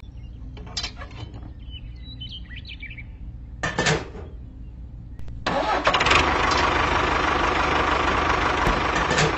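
Miniature DIY tractor with a rotary cultivator: a low steady engine-like hum with a few clicks as the implement is handled, then from about five and a half seconds in a much louder motor running, which stops near the end.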